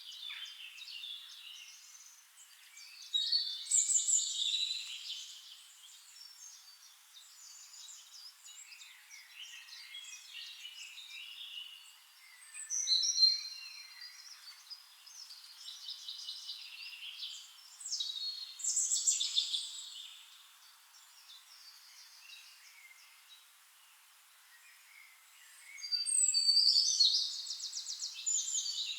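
Songbirds singing in short, varied chirping phrases, with louder bursts about three seconds in, around the middle, and a rapid trill near the end.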